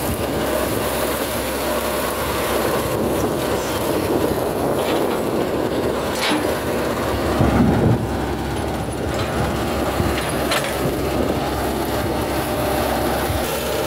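Hitachi crawler excavator's diesel engine running steadily under work while the hydraulic boom and bucket move, with a few sharp metallic clanks and one heavier thump a little past halfway.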